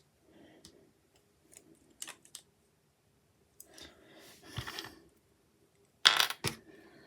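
Small plastic Lego pieces clicking and clattering as they are handled and pressed together, in scattered short rattles; the loudest clatter comes about six seconds in.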